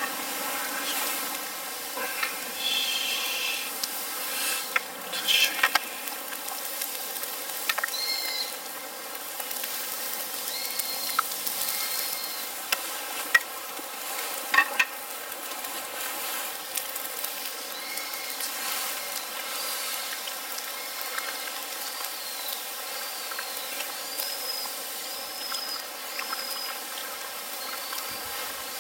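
A Swedish torch (a split log burning from within) crackling and hissing, with scattered sharp pops. From about eight seconds in, short high chirping notes repeat in the background.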